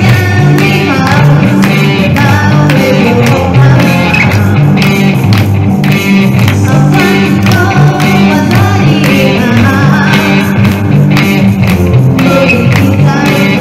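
Live rock music, loud and steady: an electric guitar played through an amplifier and a vocalist singing through the PA, over low bass notes that change in a rhythm.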